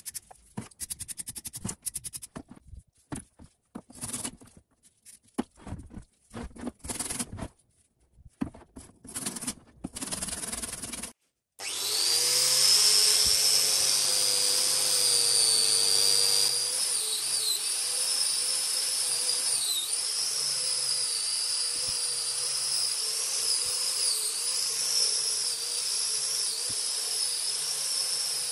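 Hand wire brush scrubbing rusty steel vise parts in a liquid bath, in quick irregular strokes. Then, after a short break, an angle grinder runs with a steady whine whose pitch dips now and then as its abrasive disc is pressed onto a steel vise jaw.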